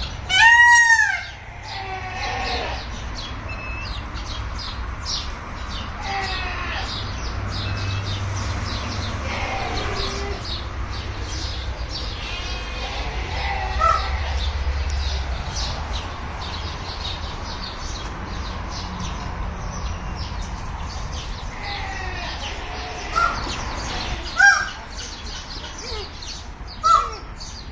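Birds calling: a loud call that rises and falls about a second in, then scattered short calls and chirps, with three short sharp calls near the end, over a steady low hum.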